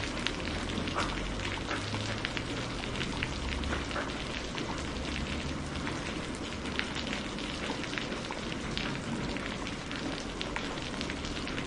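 Steady rain falling on a surface, with many distinct drops pattering against a continuous hiss and a low rumble beneath.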